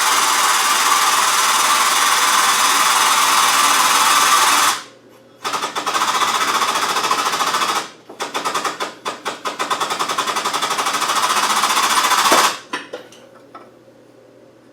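Powered shop press running in three loud bursts of rapid mechanical chatter, the last breaking into fast, even pulses, as it presses a new bush into a Land Rover LT230 transfer box casing.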